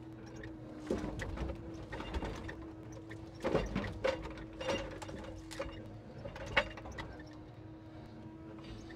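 Timber truck's hydraulic log crane setting a grapple-load of logs down on the trailer: a steady hum throughout, under a string of wooden knocks and clunks as the logs settle and the grapple lets go. The sharpest knock comes about six and a half seconds in.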